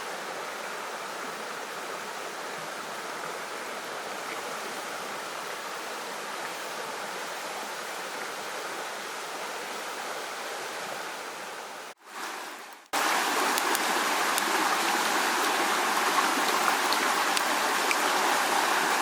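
Running water of a stream, a steady rushing. About twelve seconds in it cuts out briefly, then comes back louder and closer.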